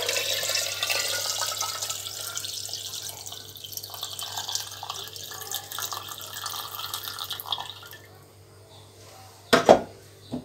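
Water pouring from a glass jug into an earthenware pot of meat, a steady splashing stream for about eight seconds that thins toward the end. Near the end there are two sharp knocks.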